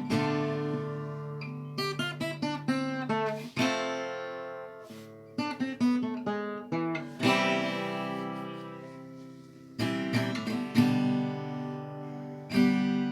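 Acoustic guitar playing an instrumental passage: strummed chords that ring out and fade, alternating with short runs of quickly picked single notes.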